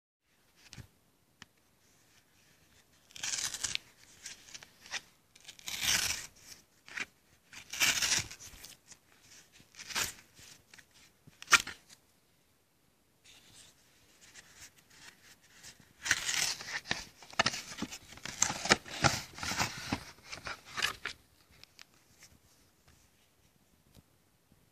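Cardboard mailer envelope being torn open and handled: separate bursts of tearing and rustling with one sharp snap, then a longer, denser run of tearing and crinkling before it goes quiet.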